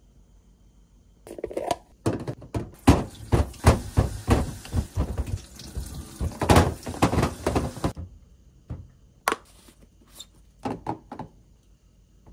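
Plastic and glass food containers being handled and filled on a stainless steel sink top: a dense run of quick knocks and clatter for about six seconds, then a few separate clicks.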